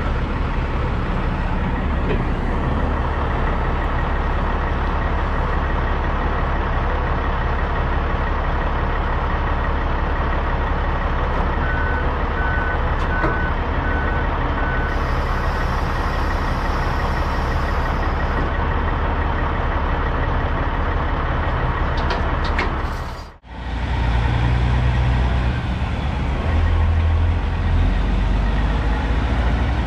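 Peterbilt semi-truck's diesel engine running steadily with a deep rumble. Partway through, a backup alarm beeps five times, followed by a high hiss lasting about three seconds. The sound drops out briefly about two thirds of the way in, and the engine rumble is louder afterwards.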